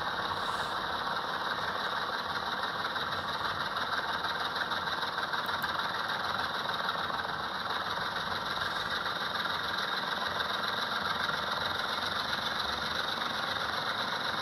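HO scale model diesel locomotive's DCC sound decoder playing the prime mover run up to full throttle through its small onboard speaker: a steady, dense engine sound with a puttering character.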